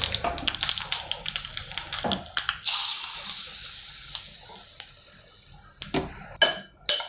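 Mustard seeds crackling and popping in a little hot oil for a South Indian tempering (tadka), then a sudden sizzling hiss about two and a half seconds in that fades away over a couple of seconds. A few metal knocks of a spoon or pan come near the end.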